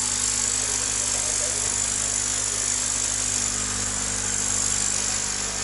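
Electric aeration air pump humming steadily, with air hissing and bubbling from air stones in basins of water, oxygenating tanks of eel fry.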